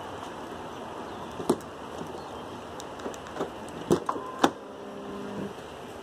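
Rear door of a Cadillac Escalade being opened: a few light knocks, then a sharp latch click, followed by a short low hum lasting about a second.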